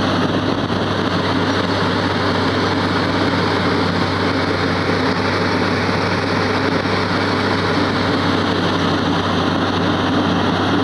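Wirtgen W 2000 road milling machine at work, its engine running steadily under load while the drum mills the asphalt and the conveyor drops the millings into a dump truck. A loud, steady machine noise with a constant low hum.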